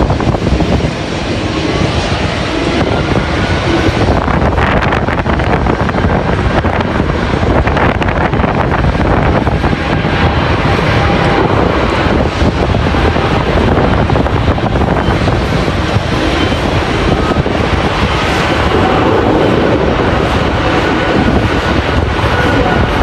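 Jet airliner engines running loud and steady, with strong wind buffeting the microphone; a faint steady whine comes in near the end.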